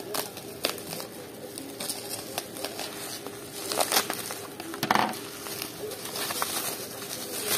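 Bubble wrap and plastic wrapping crinkling and rustling as hands unwrap a smartphone box, in irregular crackles with louder bursts about four and five seconds in.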